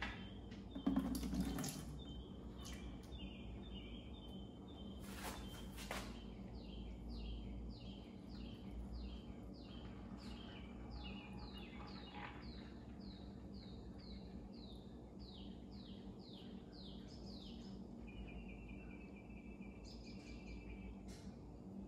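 Engine oil trickling from an outboard's drain hole into a plastic bucket, faint and steady, with a sharp clatter about a second in. Through the middle a bird outside sings a long run of quick falling notes, about two a second.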